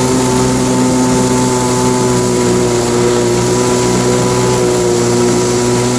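1993 Kawasaki 650SX stand-up jet ski's two-stroke twin engine running at a steady speed under way, with a constant pitch and the hiss of the water and spray beneath it.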